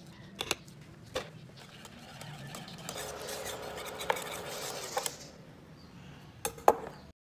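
Wire whisk stirring milk custard in a saucepan: a steady swishing stir with sharp clinks of the whisk against the pan, the two loudest near the end.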